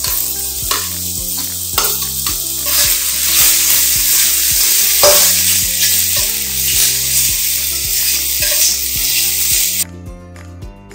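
Pressed tofu and preserved radish strips sizzling in hot oil in a hammered carbon-steel wok, with the scrape and clack of a perforated steel spatula stirring them. The sizzle starts loud as the food goes in and cuts off suddenly near the end when the wok is emptied.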